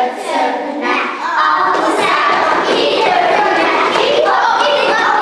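A group of young children's voices in chorus, many at once, growing fuller and louder about a second and a half in.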